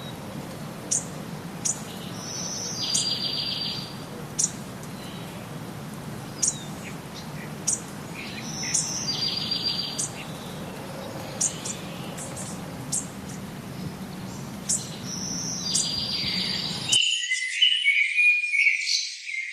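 Forest ambience: a bird gives short, sharp, high chirps about once a second, and a buzzy pulsed trill sounds three times over a steady low hum. About 17 seconds in, the ambience switches abruptly to a different recording of louder, warbling birdsong with no low hum.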